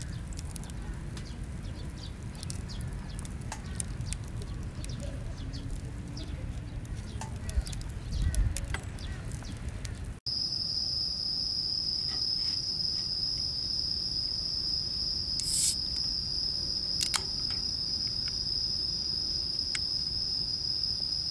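Insects chirring in one steady, high-pitched, continuous trill that starts abruptly about halfway through, with one short louder rasp a few seconds later. Before it there is a low outdoor rumble with scattered faint clicks.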